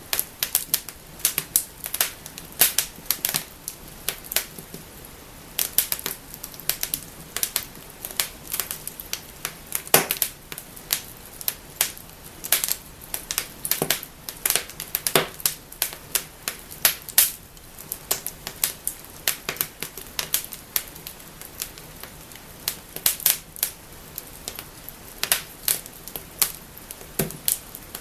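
Wood fire burning in a fireplace, crackling and snapping with many sharp irregular pops over a soft hiss.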